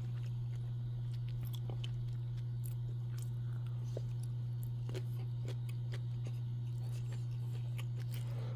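Quiet chewing of a slice of smoked beef sausage, with faint scattered mouth clicks, over a steady low hum.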